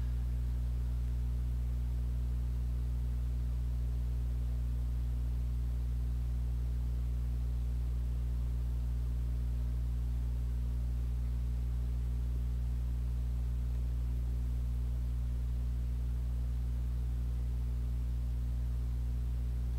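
A steady low hum with no change or break, made of a few deep tones.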